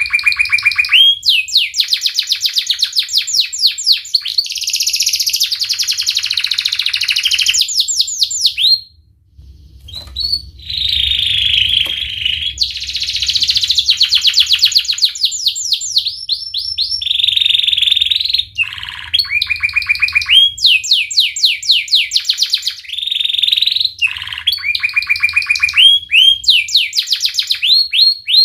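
Yellow domestic canary singing a long, loud song of rapid rolling trills, each a fast run of repeated high chirps, broken by a pause of about a second and a half near the middle.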